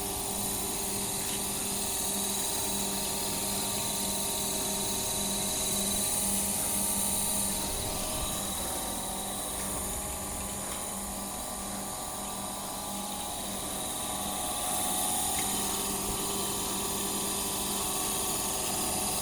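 Floating fish-feed pellet extruder with an inverter-driven electric motor, running steadily. It gives a constant hum with several steady higher tones over the mechanical noise.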